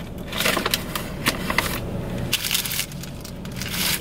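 Brown paper fast-food bag rustling and crinkling as hands rummage inside it, in several irregular bursts with small crackles.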